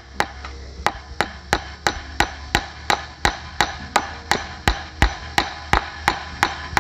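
Hammer blows on a wooden fence post, fastening barbed wire to it: quick, even strikes, about three a second.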